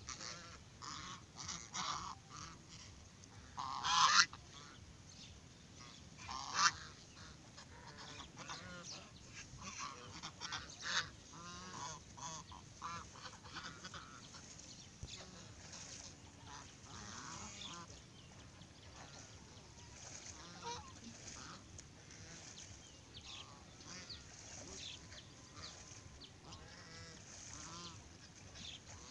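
A flock of domestic geese honking and calling over and over, the loudest calls about four seconds in and again a couple of seconds later.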